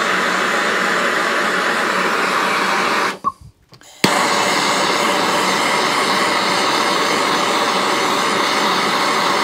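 Handheld gas blowtorch burning with a steady roar while it heats a stiff bolt so it can be loosened. About three seconds in the flame cuts out, and it comes back suddenly about a second later.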